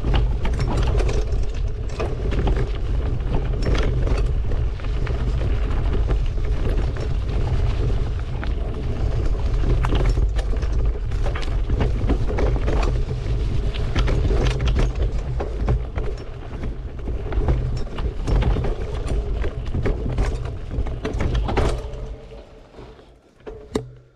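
Mountain bike ridden over a bumpy, root-covered trail, heard from a handlebar-mounted camera: low wind rumble on the microphone with constant rattling and knocking from the bike and mount. It fades out near the end, with one last knock.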